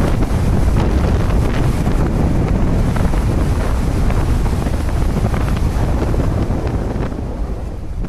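Strong wind buffeting the microphone in a steady, heavy rumble, over the rush of the sea washing along the hull of an oil tanker under way in rough weather.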